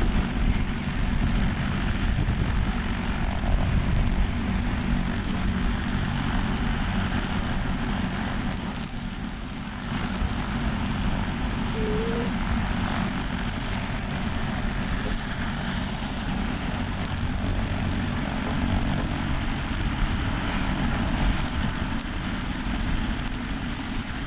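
Rescue helicopter running on the ground: a steady rushing noise with a low rumble and a constant high-pitched whine.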